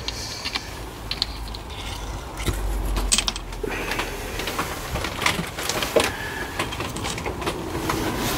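Scattered clicks, clinks and knocks of small steel engine parts being handled and lifted out of a cast engine casing by hand.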